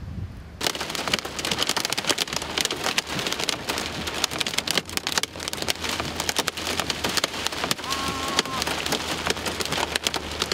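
Heavy rain pelting the roof and windshield of a moving vehicle, heard from inside the cabin: a dense, loud patter of hard hits over a steady low rumble. It starts suddenly under a second in.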